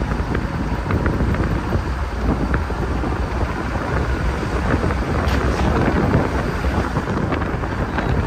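Steady wind rumble on the microphone mixed with road noise from a moving vehicle, with a few faint clicks.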